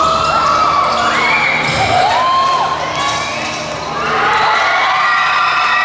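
Basketball shoes squeaking on a hardwood court during play: many short overlapping squeals that rise and fall in pitch. A ball bounce thuds about two seconds in.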